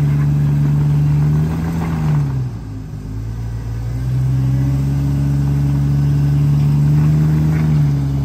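Jeep Cherokee XJ's engine held at high revs under load on a muddy hill climb. It eases off about two seconds in, revs back up about four seconds in and holds, then drops again near the end.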